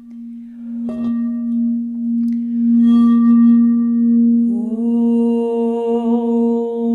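Clear crystal singing bowl ringing with one steady, sustained tone, struck once about a second in. From about halfway, a woman's hummed tone slides up to join the bowl's pitch and holds it with a slight waver.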